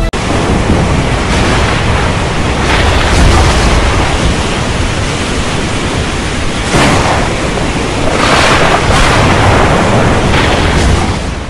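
Heavy rainstorm sound effect: a steady loud rush of rain and wind that swells several times.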